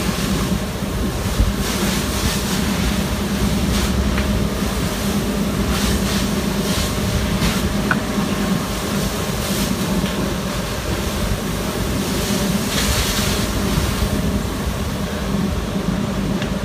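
Fire engine running steadily: a constant low hum under an even hiss, with a few short sharp cracks now and then.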